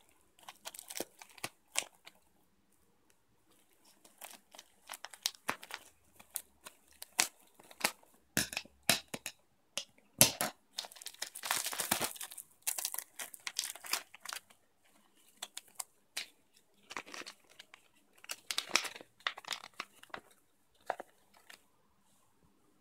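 Plastic packaging being cut open with scissors and pulled apart by hand: irregular crinkling and rustling of the plastic wrap, with a longer tearing rip about ten seconds in.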